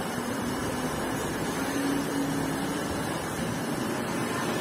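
Steady hum of a running machine motor, with a faint low tone that comes and goes.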